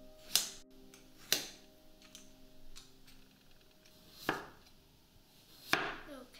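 Chef's knife slicing through a peeled raw potato onto a wooden cutting board: four sharp knocks at uneven intervals.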